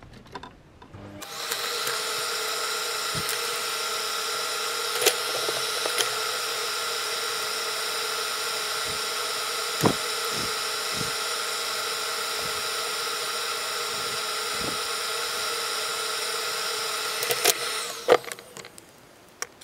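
A small electric motor runs at a steady speed with a constant whine. It starts about a second in and cuts off near the end, with a few sharp clicks over it.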